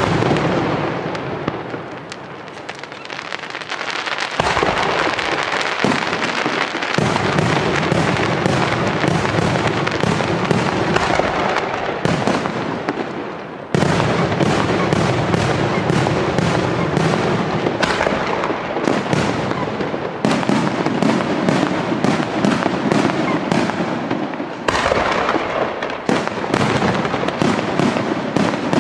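Aerial firework shells bursting in quick succession, a dense, unbroken run of bangs, with sudden jumps in loudness about four, fourteen and twenty-five seconds in.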